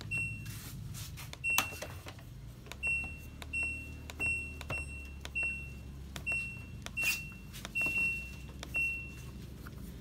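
LG top-load washing machine control panel beeping as its buttons are pressed one after another: about ten short, identical high beeps, each starting with a soft button click, irregularly spaced. The buttons register presses again, where before only the power button worked.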